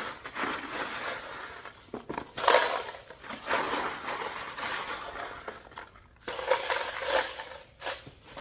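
Loose stainless steel bolts clattering and rattling in several irregular bursts as they are tipped and handled into parts bins.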